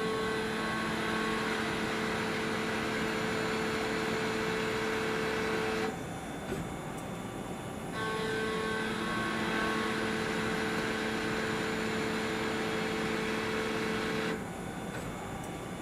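Takamaz XT-8MY CNC lathe machining a shaft: a steady whine with a fixed pitch for about six seconds, a pause of about two seconds, then a second pass of about six seconds that stops shortly before the end.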